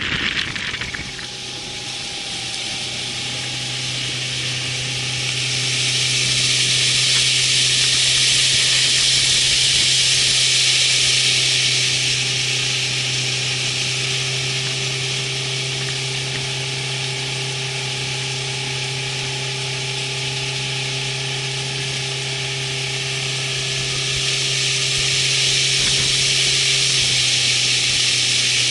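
A steady low motor hum under a loud rushing hiss. The hiss swells and eases twice.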